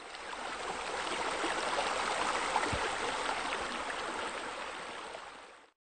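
Water falling from a raised pool wall into the pool, a steady splashing rush that fades in and fades out again, with a brief low bump about halfway through.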